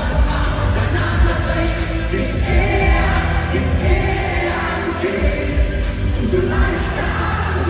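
Live Schlager-pop music played loud over an arena PA, a male voice singing over a strong bass beat.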